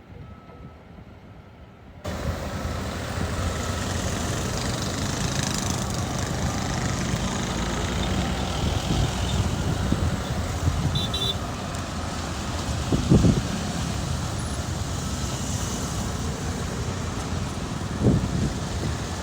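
Diesel engine of heavy construction machinery running steadily, much louder after about two seconds, with two deep thumps later on.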